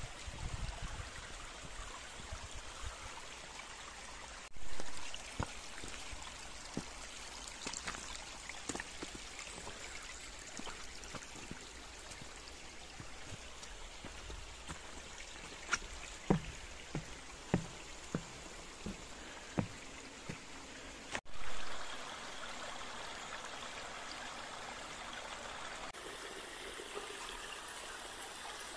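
Gorge brook running steadily, its water rushing and trickling, with a few short low knocks between about sixteen and twenty seconds in and two brief louder swells of sound, one near the start and one past the middle.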